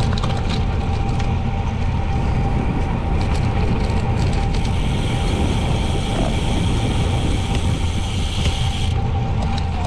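Steady wind rumble on a bike-mounted action camera's microphone while cycling, with a faint constant hum above it.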